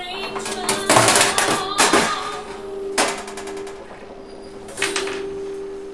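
Sheet-metal fan guard plate of a fan oven clattering and knocking against the oven cavity as it is fitted back into place, in several sharp bursts, over a steady low hum.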